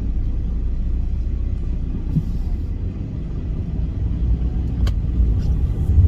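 Audi A2 on the move: steady low engine and road rumble, growing louder over the last couple of seconds as the car picks up speed.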